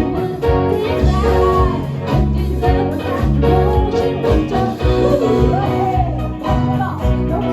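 A live band playing a song, a voice singing the melody over instruments and a steadily pulsing bass line.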